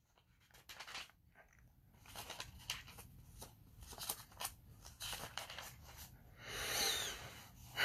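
Thin Bible pages rustling and crackling as they are leafed through, in a run of quick small crinkles, with a longer rustle near the end.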